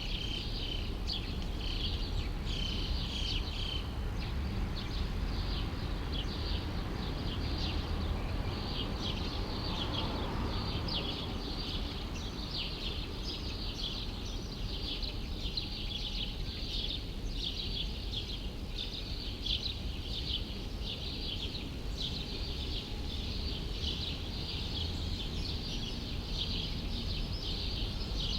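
A chorus of small birds chirping densely and without a break, over a low, steady city rumble. A faint swell in the rumble comes and goes about ten seconds in.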